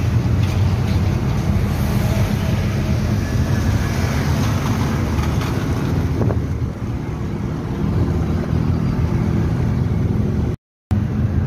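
Steady road and engine rumble heard from inside a moving car's cabin. The sound cuts out completely for a moment near the end.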